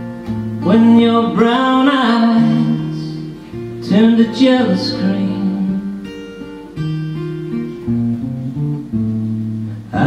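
Live acoustic guitar played with sustained, ringing chords, and a man singing over it in two phrases, about a second in and again about four seconds in.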